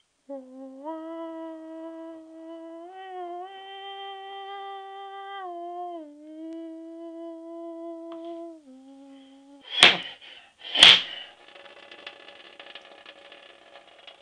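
A humming voice holds a slow line of long notes that step up and then back down in pitch. Two loud, sharp whacks follow about a second apart, then a rough buzzing drone.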